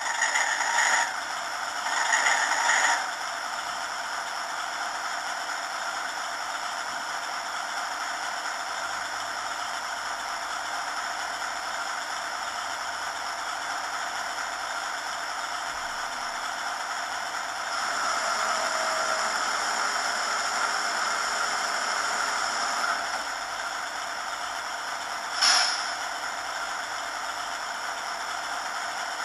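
ESU LokSound sound decoder in a Piko H0 model of a BR 118 (V 180) diesel locomotive, playing its diesel engine sound through the model's small loudspeaker. A louder start-up comes in suddenly over the first three seconds, then the engine settles to a steady idle, with a somewhat louder stretch in the middle and one brief loud burst near the end.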